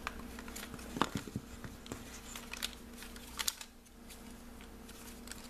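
Bundles of chipboard gift tags tied with twine being handled on a table: light taps, clicks and paper rustles as they are picked up and moved, the sharpest about a second in and again about three and a half seconds in, over a steady faint hum.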